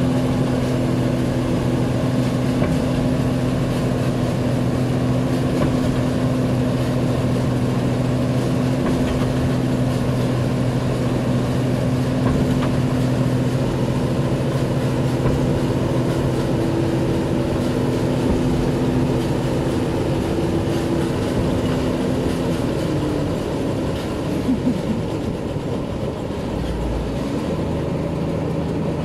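New Holland 8070 combine harvester's diesel engine running steadily with an even hum. About three-quarters of the way through, its note shifts and wavers for a few seconds, then settles a little lower.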